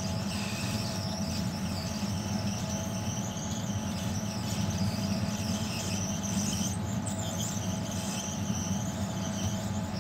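Hot air rework station blowing onto the resistors around a chip on a desktop motherboard: a steady rush of air over a low hum, with a high whine that wavers in pitch.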